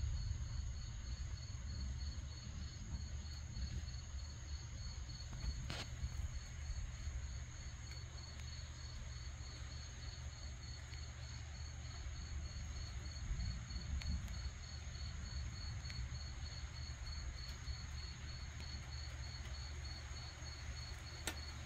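Crickets chirping in a steady even pulse, about three chirps a second, with a higher continuous insect trill and a low steady rumble beneath.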